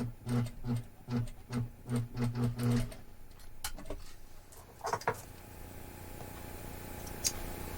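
Sewing machine stitching a top-stitch line through faux leather in short, slow spurts, about three a second, then stopping; a few light clicks follow.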